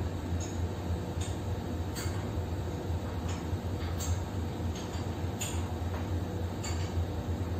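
Steady low hum of the ship's machinery, with light metallic clicks and clinks scattered every second or so as metal gym-equipment parts and tools are handled during assembly.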